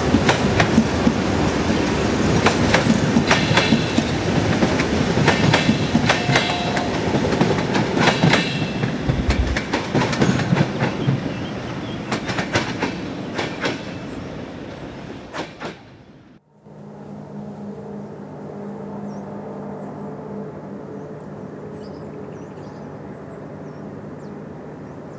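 Electric commuter train passing close by, its wheels clacking over the rail joints in a run of sharp clicks, for about sixteen seconds. It then cuts off suddenly and a quieter, steady low hum carries on.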